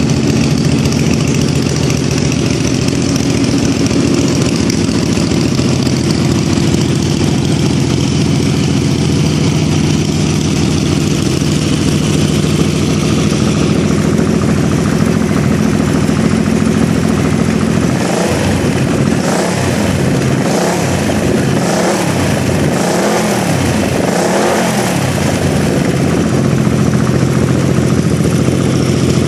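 Kasinski Mirage 250's V-twin engine running at a steady idle, hooked to vacuum gauges while its two carburetors are balanced. In the second half the throttle is blipped several times in quick succession, the engine speed rising and falling with each blip before it settles back to idle.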